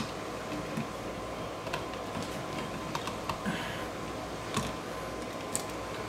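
Scattered light clicks and rustles of hands handling electrical wires and wire nuts in a plastic wall switch box.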